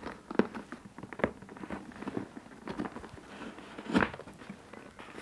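Handling of a Hermès Birkin 30 in stiff Epsom leather: the flap and straps are pressed closed over the gold front hardware, giving scattered small clicks and taps of metal and leather, the loudest about four seconds in.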